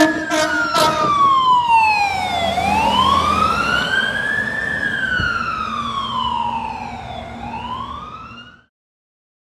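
Siren of a 2017 Pierce Saber fire engine in a slow wail, falling and rising in pitch twice and fading as the truck drives away, then cutting off suddenly near the end. A horn blast trails off in the first moment.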